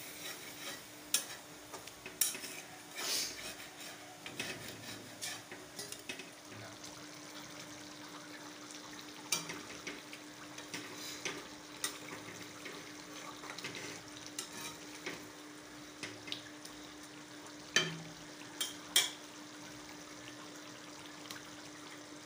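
Metal spatula stirring and scraping chicken curry in a steel kadai, with scattered clicks against the pan over the hiss of the simmering liquid and a steady low hum. Two sharp metal taps near the end are the loudest sounds.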